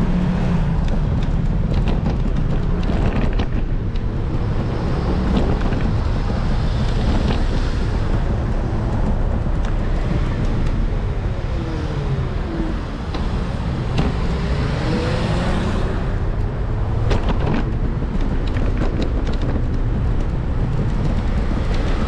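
Road traffic on a city street: a steady rumble of cars and tyres going by, with engine tones sliding in pitch as vehicles pass about halfway through.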